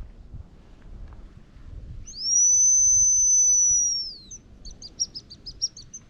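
Hazel grouse decoy whistle blown close by: one long, thin, high whistle of about two seconds, rising in at the start and dropping off at the end, then a quick run of short high notes. It imitates a male hazel grouse's song to call the bird in.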